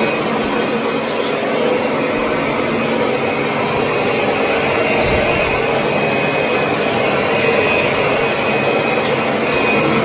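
Upright vacuum cleaner running steadily as it is pushed over a hardwood floor, with a constant motor hum.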